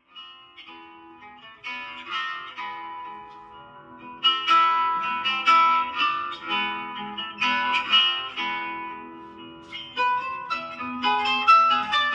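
Instrumental music of plucked strings, played as a melody of short picked notes, quiet at first and louder from about four seconds in.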